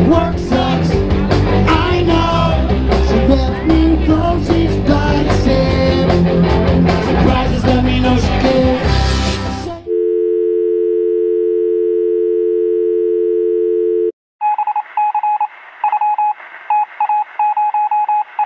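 Live reggae band playing with amplified guitars, bass and drums, cut off suddenly about ten seconds in. A steady two-note telephone-style dial tone follows for about four seconds, then after a brief break a run of short, irregular electronic beeps.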